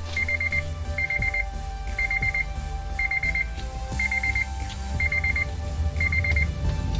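Honda Element's dashboard warning chime: a short burst of rapid high beeps repeating about once a second, the reminder that sounds with the key in the ignition and the driver's door open. A low steady rumble runs underneath.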